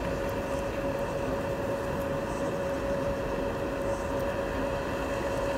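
Steady background hum over a hiss, with a faint constant tone and no distinct events.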